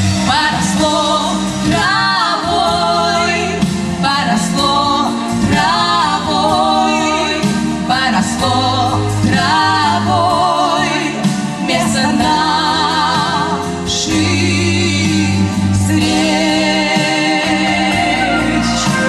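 Two women singing a Russian song as a duet into microphones over instrumental accompaniment, holding long notes with vibrato.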